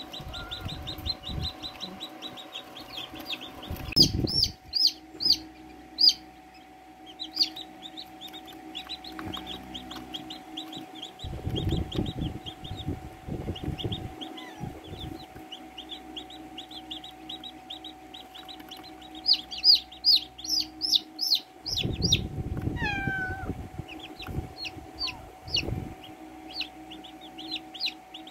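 Newly hatched chicks peeping in quick runs of high chirps, louder in two spells about 4 and 20 seconds in. Muffled rustling and bumps in the cardboard box come in a few spells.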